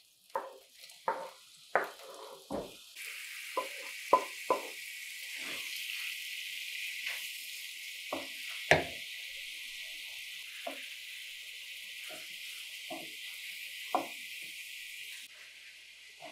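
Diced raw chicken frying in a pan, a steady sizzle that starts about three seconds in as the meat goes onto the hot surface, with a spatula scraping and knocking against the pan and the wooden board. The sizzle eases off shortly before the end.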